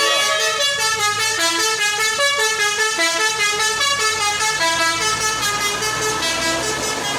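Bus 'basuri' telolet multi-tone horn playing a rapid melody of short stepped notes, about four a second, over a low steady hum.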